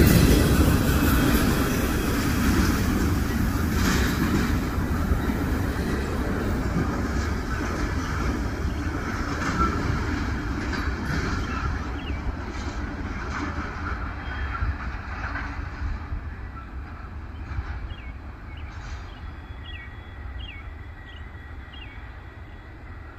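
Freight train rolling past on the rails, its noise fading steadily as it moves away, with a few clicks of wheels over the track in the first several seconds.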